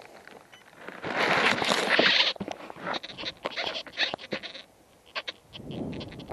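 Handling noise on a model plane's onboard camera as it is lifted out of the grass: a loud rush about a second in, then a run of sharp clicks and knocks, and a muffled low swell near the end.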